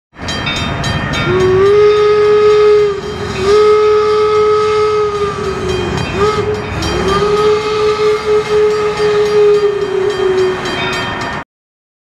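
Steam whistle of Virginia & Truckee No. 22 Inyo, an 1875 Baldwin 4-4-0 locomotive, blown in three long blasts with a short toot between the second and third, each sliding up to pitch and sagging as it is released. A steady hiss runs underneath.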